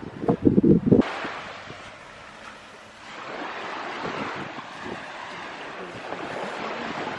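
Wind buffeting the microphone for about a second, then steady surf washing on a beach, swelling slightly about three seconds in.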